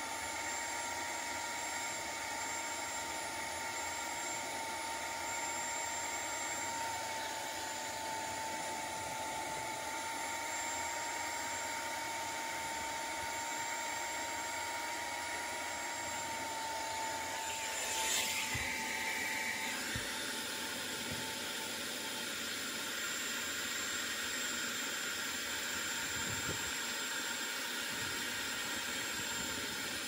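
Carpet extractor running: a steady motor whine over an even rushing hiss of suction. About two thirds of the way through there is a brief louder rush, and the whine then drops lower and fainter while the hiss goes on.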